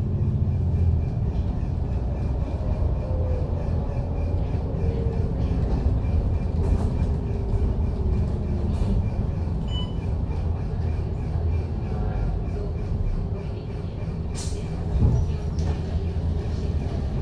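Interior of a MAN Lion's City double-decker diesel bus under way: a steady low engine rumble with a wavering drivetrain whine over road noise. A single sharp click sounds about 14 seconds in.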